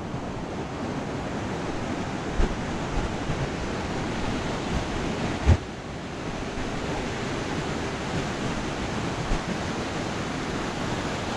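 Ocean surf breaking and washing up a sandy beach, a steady rushing wash, with a few brief low thumps scattered through it.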